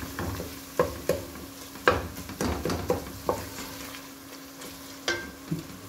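A wooden spoon stirring and scraping onion-tomato masala as it fries and sizzles in oil in an aluminium pot, with a few sharp knocks of the spoon against the pot. The masala is being fried down until the oil separates.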